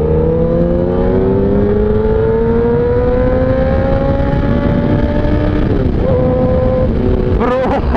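1000cc inline-four superbike engine pulling hard through a gear, its pitch rising steadily for about five seconds. Around six seconds in the revs drop briefly and the engine settles at a steadier note.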